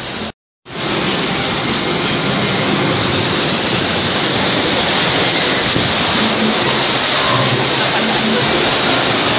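Rushing, splashing water of a river rapids ride channel, a steady loud hiss heard from aboard the raft. The sound cuts out completely for a moment about half a second in, then comes back and carries on unchanged.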